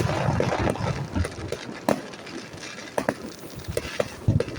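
Fireworks going off: a loud bang right at the start with about a second of dense crackle after it, then scattered sharp bangs and pops at irregular intervals.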